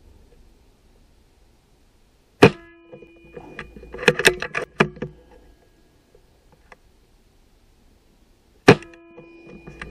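Two shots from an air rifle held under the 12 ft-lb limit, about six seconds apart, each a sharp crack followed by a short ringing tone. Between them comes a quick run of clicks as the action is worked and the next pellet loaded.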